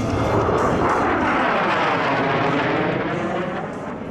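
Military jet making a low pass, its engine roar sweeping in pitch as it goes by and fading in the last second.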